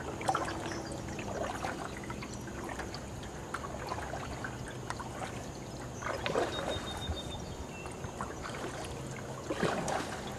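Canoe paddle strokes in fast flood water: water trickling and dripping off the blade, with a few louder splashy strokes.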